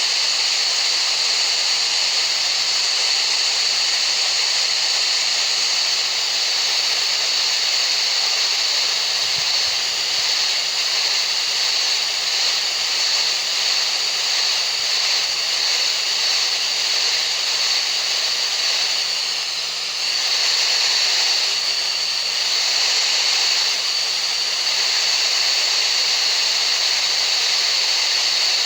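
Steady rushing masking noise for tinnitus relief, even and unbroken, with a brighter high-pitched band running through it.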